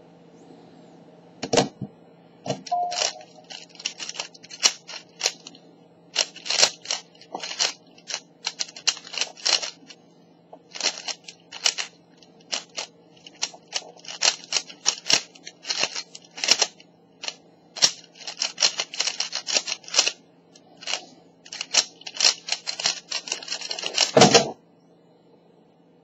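Rapid clicking and clacking of a Zhanchi 3x3x3 speed cube's plastic layers turned in quick bursts during a speedsolve. It ends near the end in a louder thump as the solve stops.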